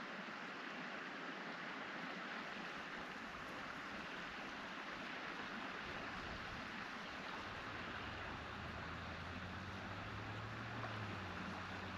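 Steady rushing of flowing river water, with no otter calls heard. About seven and a half seconds in, a low steady hum joins it.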